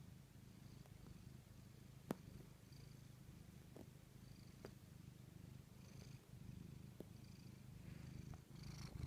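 Cat purring steadily close up, with a faint wheezy whistle on its breaths about every second and a half, which the owner takes for a cold. A few sharp clicks, the loudest about two seconds in.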